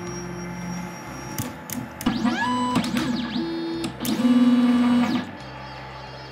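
Ultimaker 3 Extended 3D printer's stepper motors running, whining in tones that rise and fall in pitch between about two and five seconds in. The loudest is a steady hum for about a second near the four-second mark.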